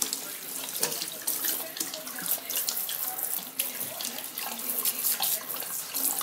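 Water from a kitchen sink's pull-out sprayer running over a wet puppy in a stainless steel sink, with uneven splashing throughout.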